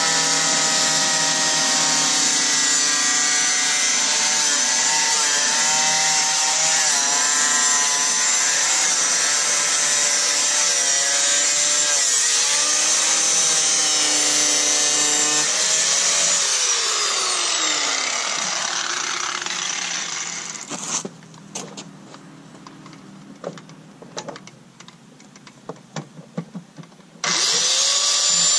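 Corded angle grinder with a thin cut-off wheel cutting through rusted steel rocker-panel sheet metal, its motor pitch sagging and recovering under the load. About 16 seconds in it comes off the cut and winds down with a falling whine, a few light knocks follow, and near the end it is switched on again and spins back up to speed.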